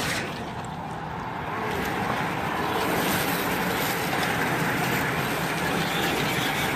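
A pack of road racing bicycles riding past, their tyres humming on the pavement. The sound builds over the first couple of seconds and then holds steady.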